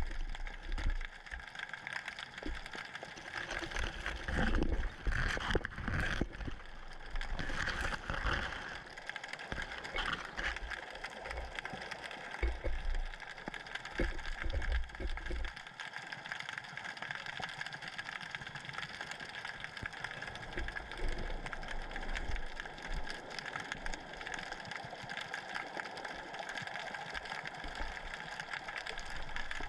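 Muffled underwater noise picked up by a camera lowered into the sea on a line: water moving around the housing, with irregular low thumps and knocks through the first half as the camera swings and bumps against rubble, then a steadier hiss with a faint hum.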